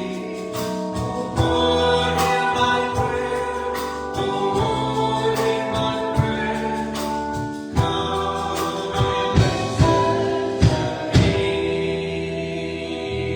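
A hymn sung by a group of voices with instrumental accompaniment, the notes held and changing every second or so.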